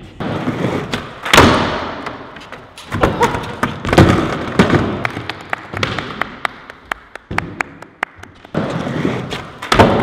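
Skateboard riding a wooden mini ramp: wheels rolling with a steady rush, and repeated thuds and clacks of the board hitting the ramp and metal coping, the loudest about a second and a half in and about four seconds in. Scattered hand claps in the middle.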